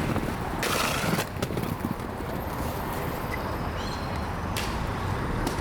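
Skateboard rolling on street pavement, with a scatter of clicks and knocks from the wheels and board and a louder rush of noise about a second in.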